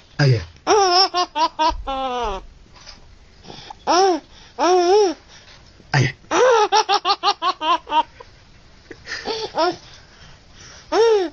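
Baby laughing: runs of quick, high-pitched giggles separated by short pauses, with a brief low sound just before the bursts near the start and about six seconds in.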